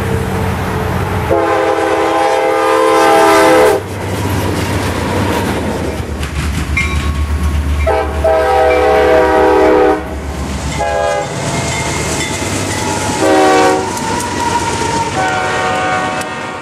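Diesel freight locomotives passing close by, their air horns sounding five times, two long blasts of about two seconds and three shorter ones, over a steady low engine rumble and the clack of wheels on the rails.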